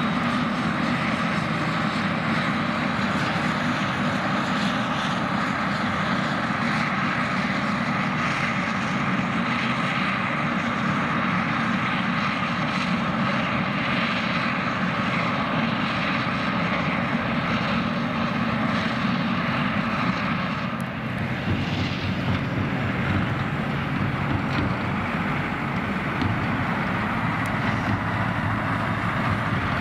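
Forage harvester and tractors at work in a silage field: a steady heavy engine drone with a high whine running through it. The sound dips briefly and changes about two-thirds of the way through.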